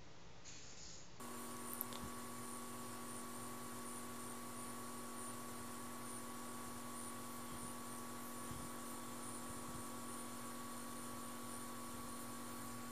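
Steady electrical hum with a faint higher whine and hiss, starting abruptly about a second in; a couple of tiny clicks are barely heard.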